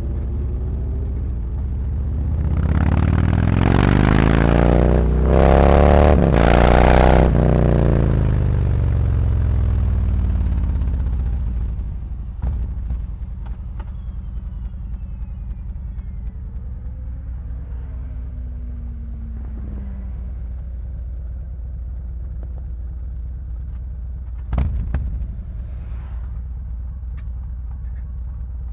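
Harley-Davidson Road Glide's V-twin through SuperTrapp 4-inch slip-on mufflers, pulling away hard with the pitch rising, broken by two quick upshifts, then dropping as it slows, and settling into a steady low idle. Near the end, a brief knock.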